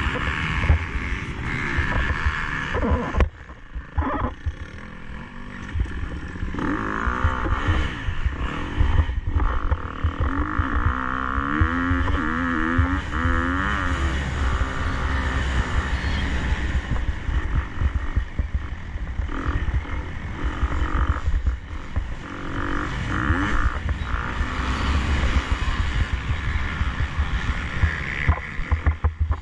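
KTM 250 SX-F single-cylinder four-stroke motocross bike engine revving up and down hard under racing throttle, with heavy wind buffeting on the microphone. The engine briefly drops off about three seconds in, then pulls again.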